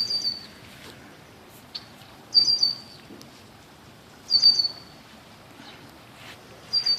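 A bird's short, high call, repeated four times about every two seconds over a faint outdoor hiss.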